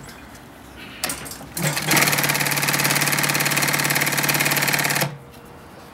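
Atlas AT7667 cylinder-bed zigzag industrial sewing machine sewing a zigzag stitch through leather, running fast with an even, rapid stitch rhythm over a steady motor hum. It starts up about a second and a half in, runs for about three seconds, and stops suddenly.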